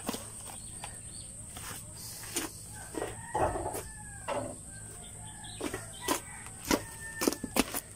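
A rooster crowing in long, wavering calls, with a run of sharp, crackling clicks close by that are loudest near the end.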